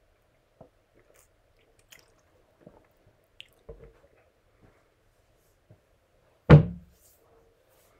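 A few faint clicks and small knocks, then one loud thump about six and a half seconds in.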